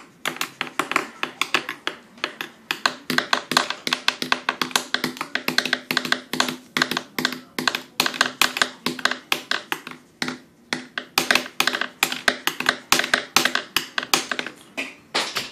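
Rapid, uneven taps of a drawing tool against paper on a hard table, several a second, with a short break about ten seconds in.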